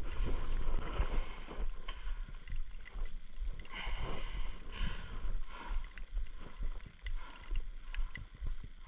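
Wind buffeting the microphone: a low rumble that rises and falls in gusts, with a light hiss over it.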